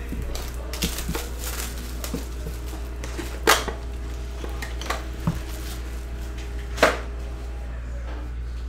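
Hands unwrapping a sealed trading-card hobby box: plastic shrink wrap crinkling and the cardboard box being handled, with a few sharp taps and knocks, the loudest about three and a half and seven seconds in. A steady low hum runs underneath.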